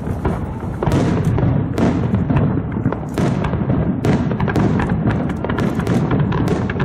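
Fireworks bursting in rapid succession: deep booms mixed with sharp cracks, the crackling growing denser toward the end.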